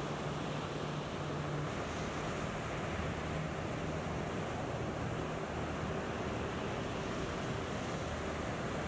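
Ocean surf breaking and washing in, a steady rushing noise.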